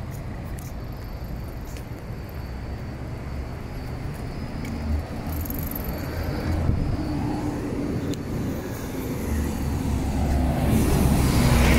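Road traffic on a city street: cars driving past with a steady low rumble, growing louder near the end as a bus is close by.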